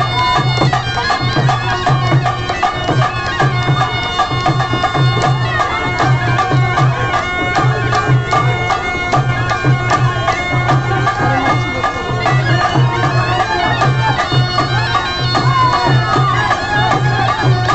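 Traditional procession music: a reedy wind instrument plays a wavering melody over a steady, repeating drum beat, accompanying the masked Ravan dance.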